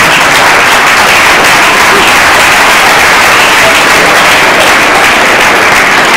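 A large audience applauding, a loud, steady, dense clapping that dies down shortly after.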